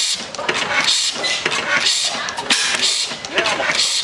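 Hille inverted flame-ignition slide-valve gas engine running, with uneven hissing puffs about two a second from its valve gear and ignition.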